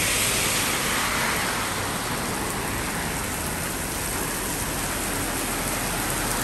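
Steady rain falling, an even continuous hiss.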